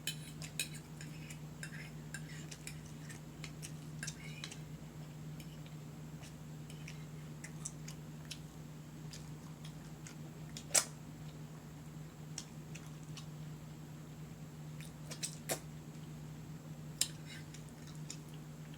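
Eating at a table: scattered light clicks and clinks of dishes and cutlery on a plate, the sharpest about eleven seconds in, over a steady low hum.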